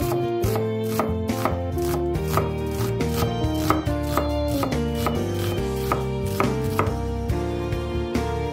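Chef's knife slicing a peeled onion on a wooden cutting board: repeated crisp cuts about two to three a second, each blade stroke ending in a knock on the board, over background music.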